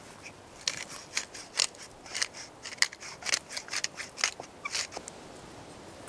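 A quick, irregular run of about twenty sharp, crisp snips, starting under a second in and stopping about a second before the end.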